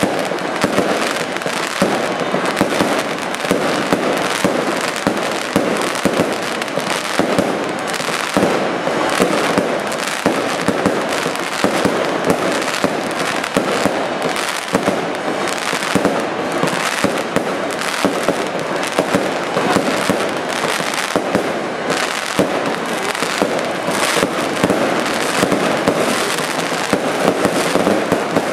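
Aerial firework shells bursting in a rapid, unbroken barrage, many bangs overlapping at once.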